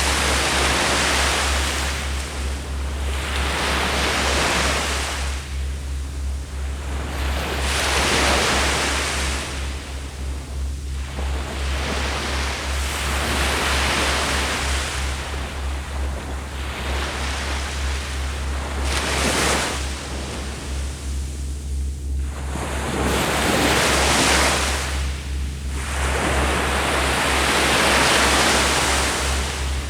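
Sea waves breaking and washing up a beach, the surf swelling and falling back about every four to five seconds. A steady low rumble lies underneath.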